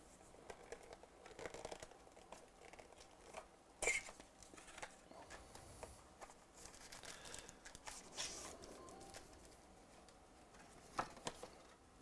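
A 2018 Panini Diamond Kings baseball card box being opened by hand: faint crinkling and tearing of its wrapping and cardboard, with small clicks throughout. A sharp snap comes about four seconds in, another crinkly burst about eight seconds in, and two clicks near the end as the packs are pulled out and set down.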